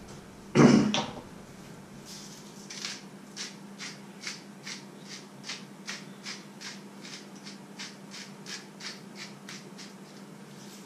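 A single clunk, then a hand-twisted spice grinder crunching over a frying pan, about two to three grinds a second for several seconds.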